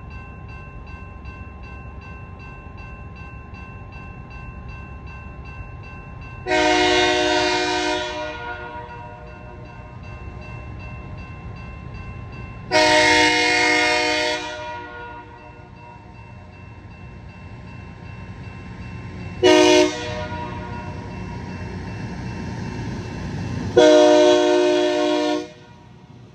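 Loram rail grinder's multi-chime air horn sounding two long blasts, one short and one long: the standard grade-crossing signal. Beneath it, the machine's low rumble builds as it approaches.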